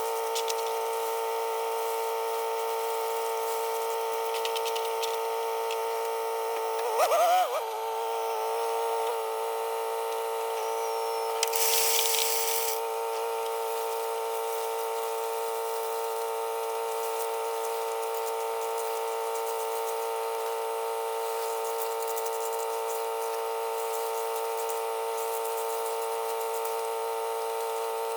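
Steady high-pitched whine of the electric hydraulic pump on a pickup's dump insert, running continuously with many overtones. Its pitch wavers and dips briefly about seven seconds in, and a short hiss comes about twelve seconds in.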